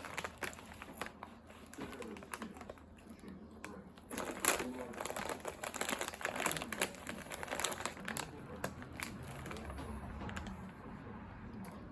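Irregular clicks and crinkling rustle, busiest from about four to eight seconds in.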